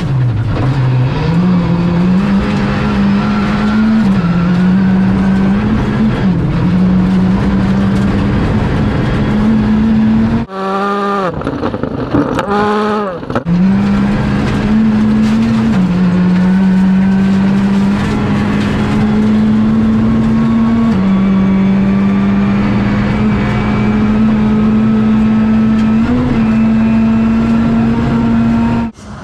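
Skoda Fabia R5 rally car's turbocharged 1.6-litre four-cylinder engine driven hard on gravel, heard from inside the cabin: held at a steady high pitch with brief dips at gear changes. About ten seconds in the sound drops away and the revs rise sharply twice before the steady note returns.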